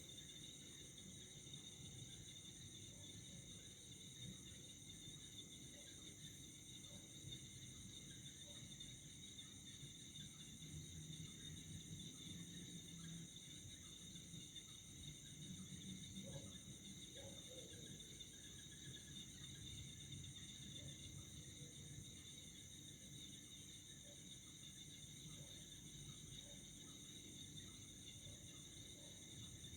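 Faint night insect chorus, crickets trilling steadily at several high pitches at once over a low rumble.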